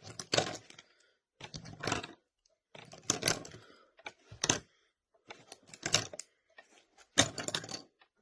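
Plastic pens clattering as they are set down one at a time, a short burst of clicks about every second and a bit.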